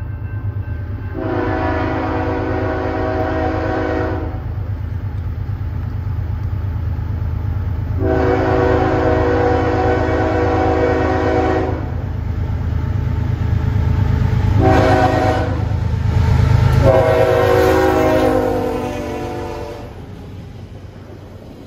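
A CSX ST70AH-T4 freight locomotive approaches and passes, its horn sounding the long-long-short-long grade-crossing signal over the diesel's low rumble. The rumble is loudest as the locomotive goes by, about three-quarters of the way in, then drops as the cars follow.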